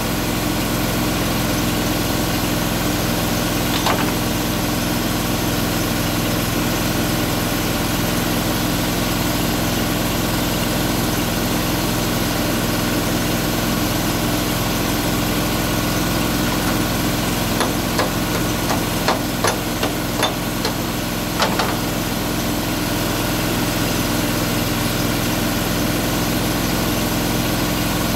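An engine running steadily, with a sharp knock about four seconds in and a cluster of sharp knocks about two-thirds of the way through.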